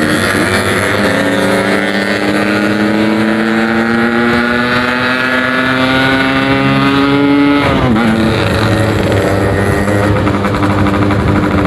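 Yamaha RX-King two-stroke motorcycle engine, fitted with a 'packing power' setup, accelerating: its pitch climbs steadily for about seven and a half seconds, drops sharply at a gear change, then climbs again as it pulls in the next gear.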